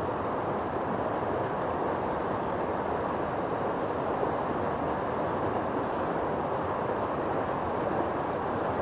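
Fast stream water rushing over rocks in a steady, unbroken rush with no change in level.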